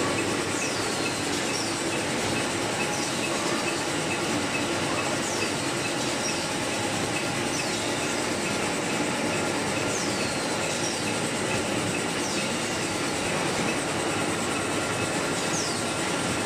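Rotary labeling machine and bottle conveyor of a water-bottling line running at speed: a steady mechanical clatter with faint even ticking, and short high squeaks falling in pitch every couple of seconds.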